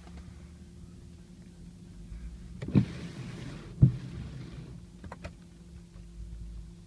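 BMW E60 M5 start attempt: a sharp clunk, about a second of whirring, then a second clunk and a fading whir, with the engine not catching. Faint clicks follow.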